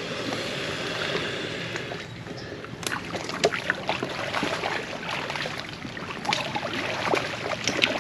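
Water sloshing and lapping as alligators move in a feeding pond, with scattered short splashes and clicks.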